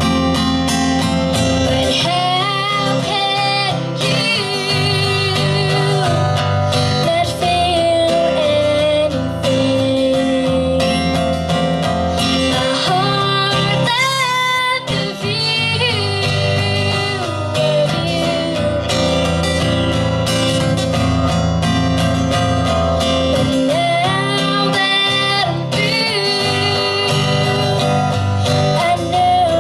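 A woman singing a song to acoustic guitar, the guitar strummed under a continuous sung melody.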